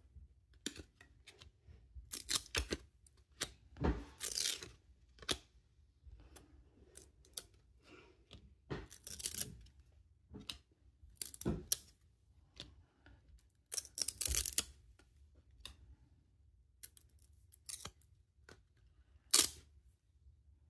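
A stack of cardboard football trading cards being flipped through by hand. It makes irregular short papery swishes and flicks as cards slide off the stack one at a time, with a handful of louder swipes among softer clicks.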